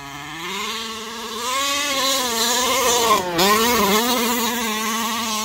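HPI Baja 5T 1/5-scale RC truck's two-stroke petrol engine running under throttle, its pitch rising and falling as it drives. The pitch dips briefly about three seconds in as the throttle is eased, then holds fairly steady near the end.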